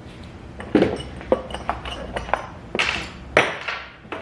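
Small metal jig parts and tools being handled and set down: about half a dozen sharp clinks and knocks at uneven intervals, some with a brief metallic ring.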